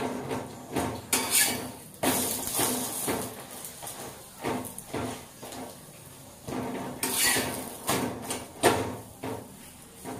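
A cooking utensil scraping and knocking in a pot on the stove, in irregular strokes with a couple of longer scrapes.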